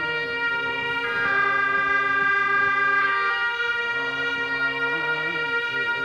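Tibetan gyaling, the double-reed horns of Buddhist ritual, playing a slow melody of long held, piercing notes that step to a new pitch about a second in and again about three seconds in. A lower line of deep chanting voices moves underneath.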